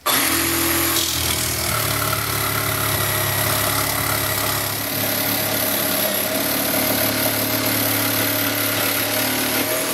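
Parkside PSTDA 20-Li A1 cordless jigsaw running steadily as its reciprocating blade saws through a 22 mm MDF board, with no stalling. It starts abruptly and cuts off near the end once the cut is through.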